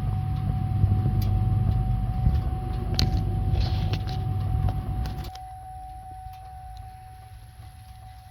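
Chevy Express van V8 engine running with a loud low rumble and scattered ticks; the rumble drops sharply quieter about five seconds in. The van's complaint is engine knocking, which the inspector suspects comes from a sticking lifter on cylinder 7.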